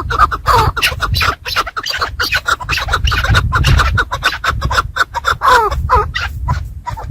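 Chukar partridge making short, repeated clucking calls that slide downward, over a dense run of scratching and rustling.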